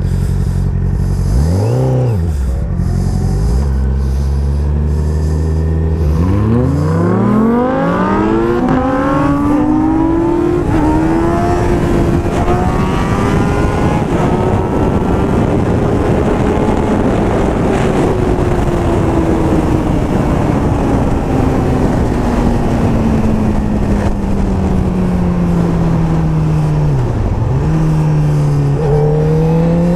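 Sport motorcycle engine running at low revs, with a quick throttle blip about two seconds in. From about seven seconds it revs up hard, then holds a high note that slowly sinks, dips sharply near the end and rises again, over steady wind rush.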